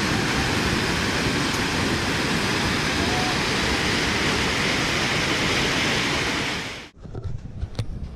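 Steady rushing of a flooded, overflowing river. It cuts off abruptly about seven seconds in, and a quieter stretch with a single sharp click follows.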